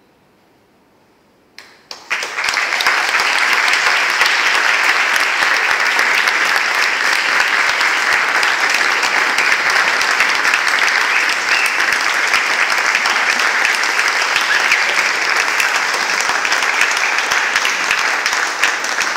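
Near silence for about a second and a half, then a few sharp claps and a whole audience breaks into steady applause that carries on to the end.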